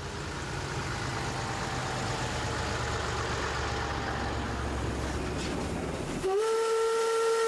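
An old fire engine's motor rumbles as it drives closer, growing slowly louder for about six seconds. It cuts off, and the steam whistle of tank locomotive 80039 blows one loud, steady note that runs to the end.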